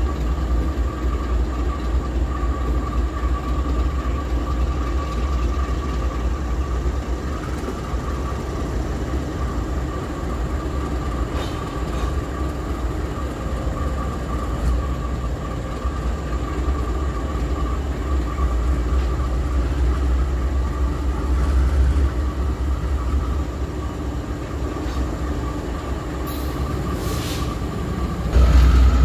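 Diesel-electric freight locomotives idling at low speed, with a deep steady rumble and a steady high whine above it, and a few faint clicks. The rumble grows louder near the end.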